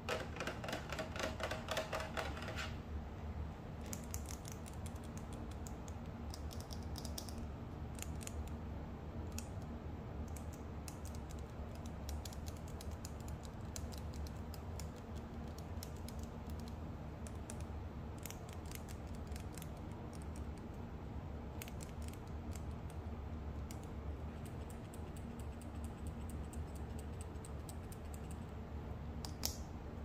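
Hands handling plastic skincare packaging: a crinkling rattle of the moulded plastic tray for the first couple of seconds as a small pump bottle is lifted out, then scattered light taps and clicks of fingers on the plastic bottle, with a sharper click near the end. A steady low hum runs underneath.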